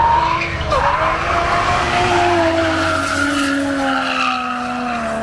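Drift cars sliding with their tyres squealing in several long, wavering tones over the noise of their engines.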